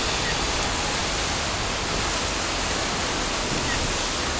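Steady rushing noise of wind on the microphone and water churning along the hull of a moving ferry, with a low rumble underneath.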